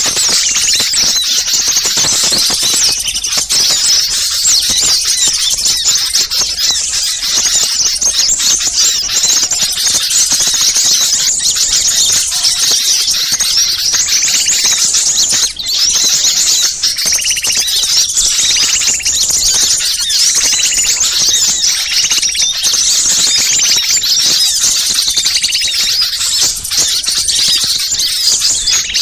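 A dense, continuous chorus of many small birds chattering and calling excitedly, high-pitched, with lower repeated notes joining in the second half. It is a "ribut" (commotion) lure recording of small songbirds, the agitated calling used to draw wild birds in.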